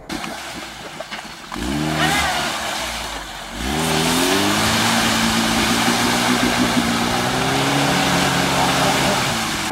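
Lada Niva engine revving up briefly, then rising again and held at steady high revs as the car pulls through deep mud and water, with a steady rushing noise over it.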